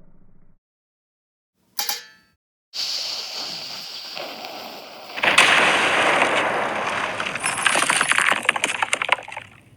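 A string of cartoon-style sound effects. A brief blip comes about two seconds in, then a steady hiss, which about five seconds in swells into a loud rushing noise full of crackles lasting about four seconds.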